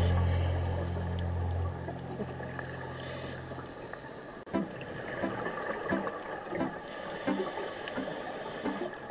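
Background music: a sustained low chord fades out, then sparse, quiet plucked notes follow about every half second.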